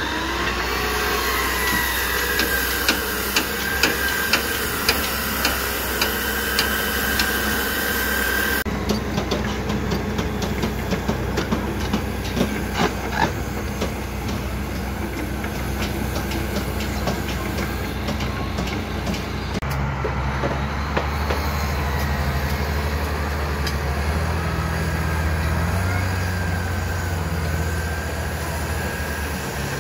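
Construction-site machinery in three parts. First a wavering high motor whine with regular ticking, an abrasive chop saw at work among the rebar. About nine seconds in it changes to ticking and knocking clatter. From about twenty seconds a heavy diesel engine runs low and steady.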